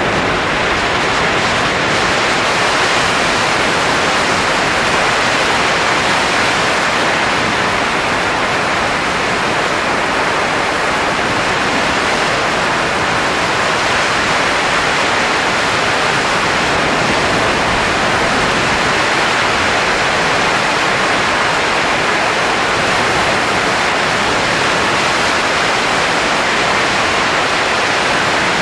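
Steady, even rushing noise of blowing air, with no breaks or changes in level.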